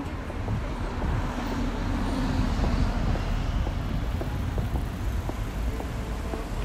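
A motor vehicle passing close by on a city street, its engine and tyre noise swelling to a peak about two to three seconds in and then easing off, over steady traffic noise.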